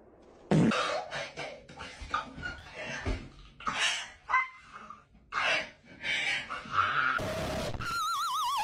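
A woman's loud, ragged shrieks and wails in short irregular bursts. Near the end a horse whinny with a wavering, falling pitch comes in over a steady hiss.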